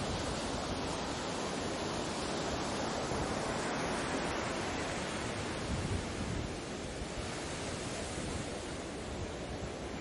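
Sea waves washing: a steady rushing noise that swells a little midway and eases off after about six and a half seconds.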